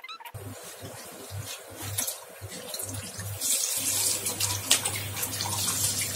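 Water splashing into a stainless-steel kitchen sink as the parboiling liquid is poured out of a pot. About four seconds in, a cold tap runs steadily into the pot while parboiled goat meat is rubbed clean by hand to wash off the blood.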